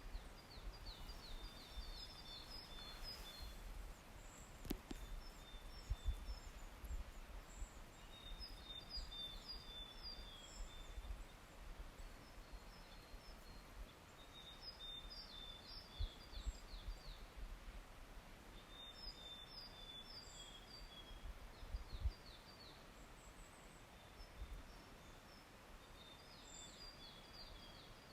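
A songbird singing short phrases of rapid high notes, a phrase about every five or six seconds, over a low rumble.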